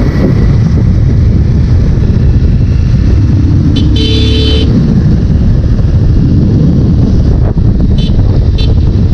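Motorcycle riding in traffic, its engine and wind on the microphone making a steady low rumble. A vehicle horn honks for under a second about four seconds in, and two short horn beeps follow near the end.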